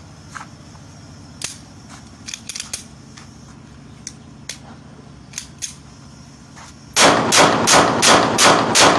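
A pistol handled with a few sharp metallic clicks while it is loaded. About seven seconds in, it fires a rapid string of about eight shots, roughly four a second, emptying a magazine.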